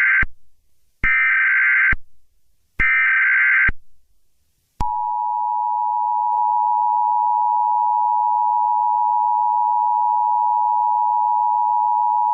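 Emergency Alert System tones: the end of one burst and two more bursts of the shrill, warbling SAME header data signal, each about a second long with a second of silence between them. About five seconds in, the steady two-tone EAS attention signal starts and holds.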